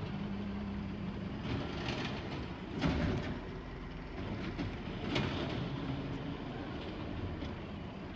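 Front-loading garbage truck's engine running as its hydraulic arm lifts a trash cart over the cab to dump it and lowers it again, with clanks about three and five seconds in.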